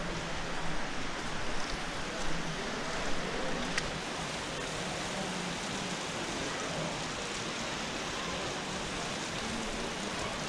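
Steady rush of flowing stream water, an even noise that holds constant throughout.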